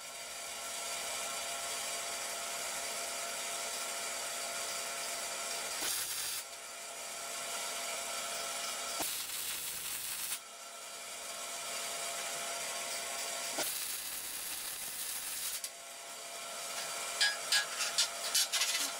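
MIG welding on steel box section: the arc's steady crackling hiss in several runs of a few seconds each, broken by brief pauses, then a handful of short sharp crackles near the end.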